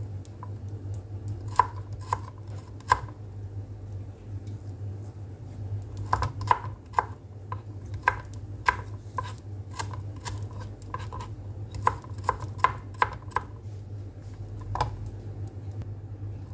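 Kitchen knife chopping kencur (aromatic ginger) leaves and stems on a cutting board: separate knocks of the blade on the board, a few spaced ones in the first three seconds, then a quicker irregular run from about six to thirteen seconds in, and one last knock near the end.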